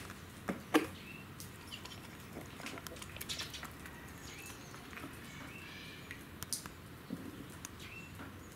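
Faint background of scattered light clicks and taps with a few short, high chirps from birds; a sharp click about a second in is the loudest sound.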